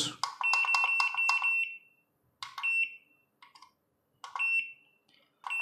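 SkyRC IMAX B6 V2 charger's key beep sounding as its buttons are pressed. First comes one long high beep with rapid ticking for about a second and a half, then three short high beeps roughly a second or two apart.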